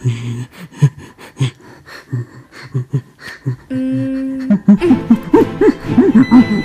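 A person's voice making untranscribed vocal noises: short low sounds, then a held hum for under a second about four seconds in, then a quick run of rising-and-falling hoots from about five seconds on.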